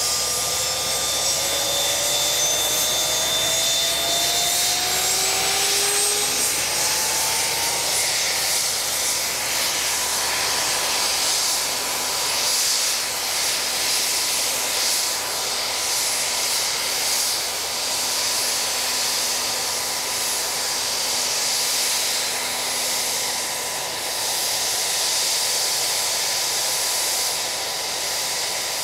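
VH-60 Marine One helicopter's turbine spooling up on the ground: a whine rising steadily in pitch over the first eight seconds or so, then levelling into a steady high whine and hiss.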